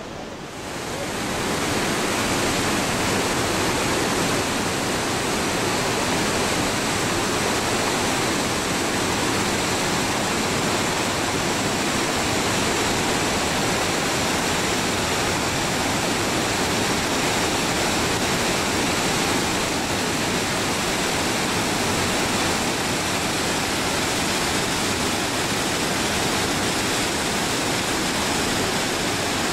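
A torrent of the upper Ganga plunging over boulders and rock ledges in a waterfall: a steady, loud rush of water that fades in over the first second or two.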